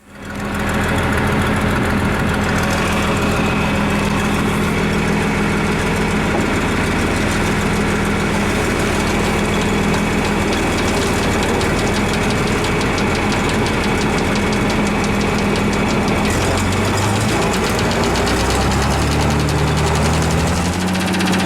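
Tractor diesel engine starting up loud and running steadily, its speed picking up over the last few seconds.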